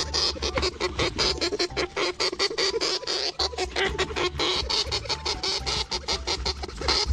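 Dwarf hamster chewing a green leaf close to the microphone: a fast, dense run of crisp crunching clicks.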